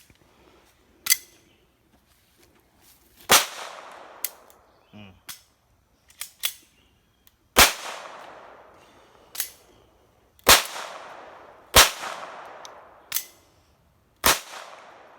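Five .22 LR gunshots at uneven intervals from a GSG rimfire firearm, each a sharp crack with a trailing echo, with fainter cracks and clicks in between.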